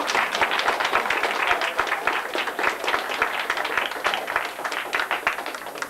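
Audience applauding after a fiddle tune ends, the clapping slowly thinning out and dying away near the end.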